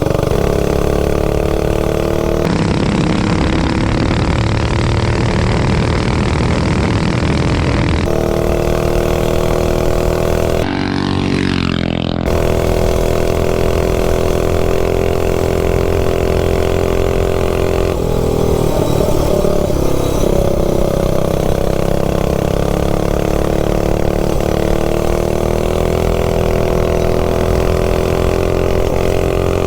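Stage 3 single-cylinder clone minibike engine running hard under load during a ride, fed by a Nibbi carburetor jetted richer with a bigger main. The pitch holds high, dips about two-thirds of the way through, then climbs back as it accelerates again.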